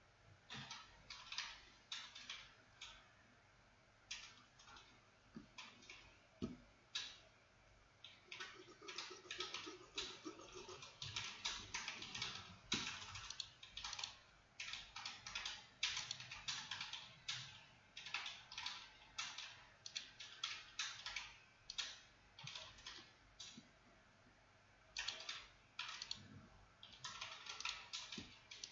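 Typing on a computer keyboard: irregular runs of quick keystroke clicks with short pauses between them.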